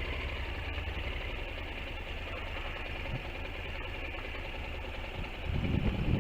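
Honda NC700X's parallel-twin engine idling with a steady, even low beat, heard through a helmet-mounted camera. It grows louder near the end as the bike begins to move off.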